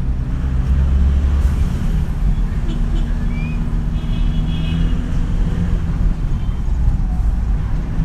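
Motor vehicle engine and road noise, a steady low rumble, with faint voices around the middle.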